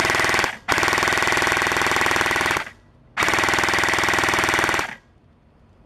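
Airsoft gun firing on full auto in three bursts: a short one, a long one of about two seconds, then one of about a second and a half.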